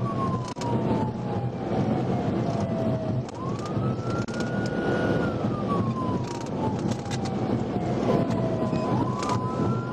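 Police cruiser siren on a slow wail, climbing quickly, holding, then sliding down in pitch, about six seconds to each cycle, over the steady road and engine noise of the pursuing car.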